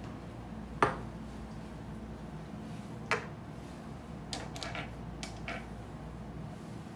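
Small glass perfume-oil bottles clinking and being set down on a hard countertop. A sharp knock comes about a second in and another about three seconds in. A quick run of lighter clinks follows between about four and five and a half seconds.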